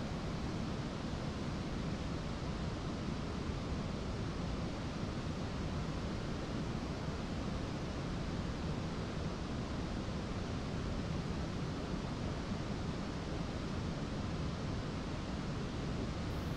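Single-engine piston aircraft idling on the ground, its propeller turning slowly: a steady, even, low running noise with no change in speed.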